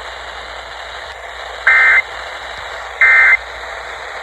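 Emergency Alert System end-of-message data bursts relayed by an FM radio: two short, identical bursts of warbling digital tone about 1.3 seconds apart, over steady radio hiss. They mark the end of the alert message.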